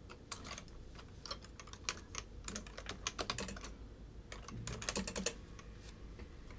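Typing on a computer keyboard: faint key clicks in several short runs with brief pauses between them.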